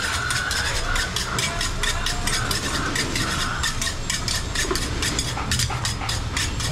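Rapid, even knocks of butchers' cleavers chopping goat meat on a wooden block, about four or five strokes a second, over a steady low engine hum.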